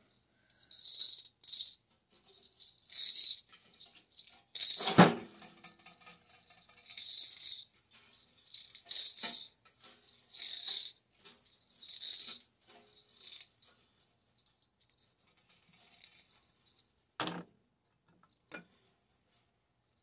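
Metal parts of a microwave rattling and scraping in a dozen short bursts as they are worked apart by hand and with pliers. About five seconds in comes one loud metallic clank that rings briefly, and near the end two sharp clicks.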